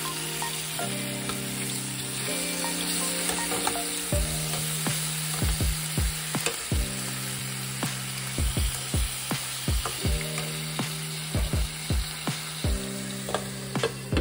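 Chicken pieces sizzling as they fry and brown in hot oil with caramelised brown sugar in a frying pan. Sharp clicks and pops come thick and fast from about four seconds in. Background music plays.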